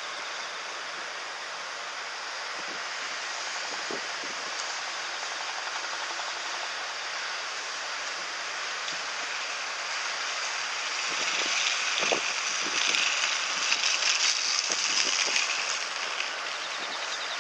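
Steady wind hiss, swelling into a louder gust for several seconds past the middle, with a few faint knocks.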